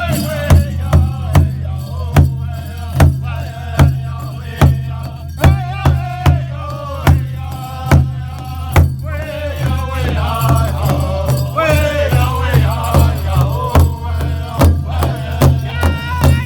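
Pow wow drum group: a big drum struck in a steady beat about twice a second while the singers chant in high, wavering voices, over a steady low hum.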